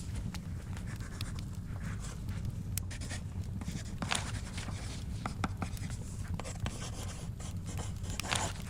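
Writing on paper, the pen scratching in short strokes, with scattered small crackles from a fire and a low steady rumble underneath.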